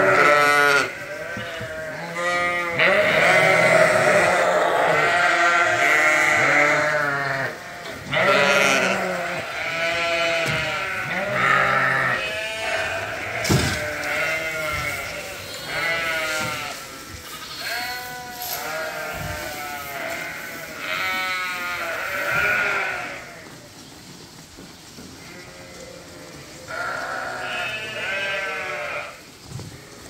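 A flock of ewes and lambs bleating loudly, many wavering calls overlapping as the sheep clamour for their grain at feeding time. A single sharp knock sounds nearly halfway through, and the calling thins out over the last few seconds.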